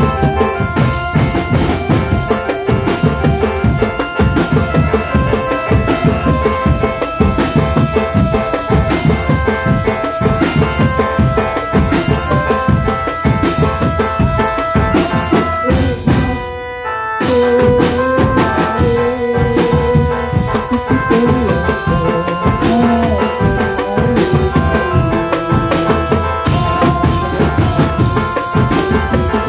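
Drum band music: a fast, dense drum beat with a melody played over it. About halfway through the music briefly drops away, then resumes with a new tune.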